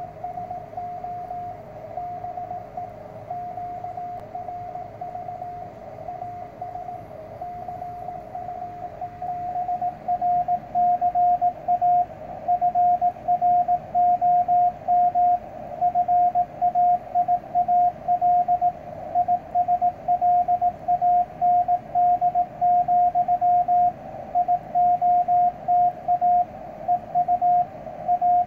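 Morse code (CW) from the ARRL bulletin coming out of a Yaesu ham radio transceiver: a single steady tone keyed on and off in dots and dashes over band noise. The signal is faint and noisy at first, then comes up clearly louder and cleaner about ten seconds in.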